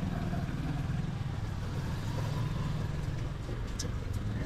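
Small motorcycle engine running steadily at low speed, with street traffic noise around it.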